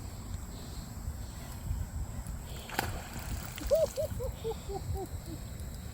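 Water sloshing and rumbling around a kayak during a fish fight, with a sharp click about three seconds in, followed by a quick run of about eight short squeaks falling in pitch.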